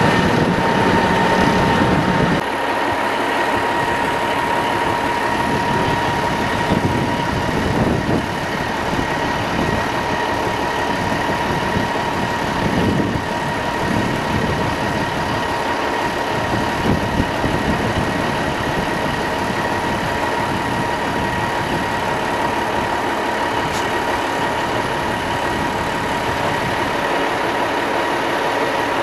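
Heavy diesel semi tractor idling steadily, with a constant high whine over the engine's rumble.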